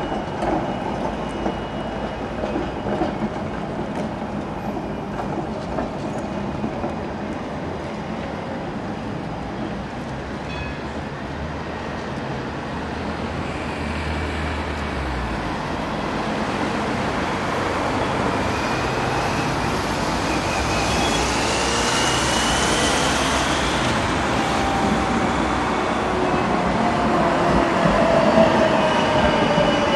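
Munich low-floor articulated tram running on street track, a steady rail rumble that grows louder as it comes close near the end. Thin whining tones glide over the rumble in the second half, one falling in pitch as the tram passes.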